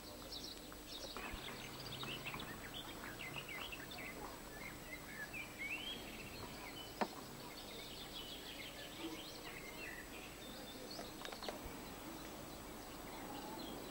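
Small birds chirping and twittering over a steady outdoor hiss, with one sharp click about seven seconds in.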